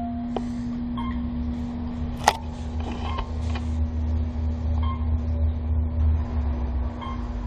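Passenger elevator car descending between floors: a low rumble over a steady hum, with one sharp click about two seconds in. The rumble fades near the end.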